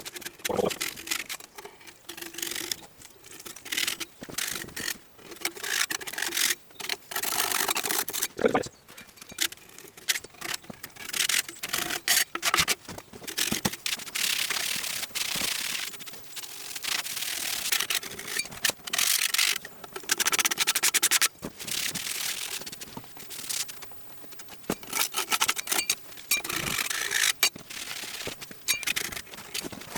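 Old liquid gasket being scraped by hand off the machined metal mating face of a century-old water-turbine casing. The strokes are repeated and uneven, some short and some drawn out over a second or two.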